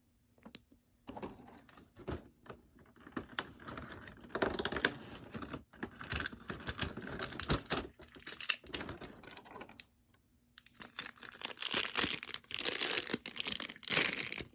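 Toy packaging being handled and opened by hand: rapid clicking and rustling, with a brief lull about ten seconds in, then louder, denser crinkling.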